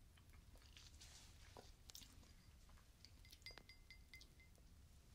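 Very faint sipping and mouth sounds from drinking wine out of a cut-crystal glass, among scattered soft clicks and crackles. A faint thin high ringing comes in about three seconds in.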